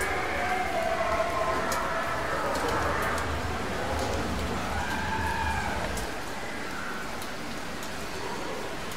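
Overlapping long, wavering howls that rise and fall in pitch, staged as Sasquatch calls, over a low rumble that drops away about six seconds in.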